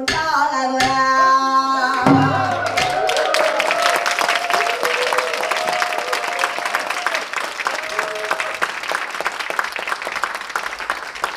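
A pansori singer and Korean traditional orchestra end the piece on a held final note, cut off about two seconds in. Audience applause follows, with voices calling out over it for a while.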